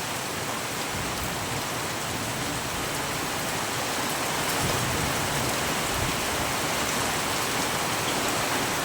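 Heavy rain falling: a steady, even hiss that swells slightly about halfway through.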